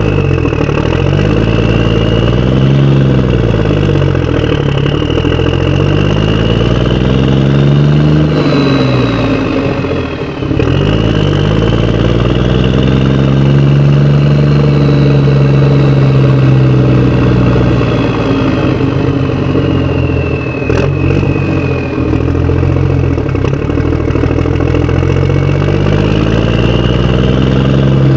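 Motorcycle engine running under way, its pitch rising and falling slowly as the rider speeds up and slows down.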